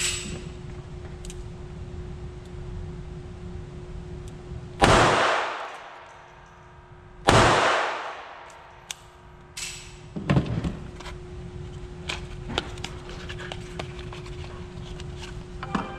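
Two loud gunshots from another shooter, about two and a half seconds apart, each echoing away over a second or more in an indoor range, then a fainter bang about three seconds later. Between and after them come light clicks and knocks of a revolver being handled and its cylinder swung open, over a steady hum.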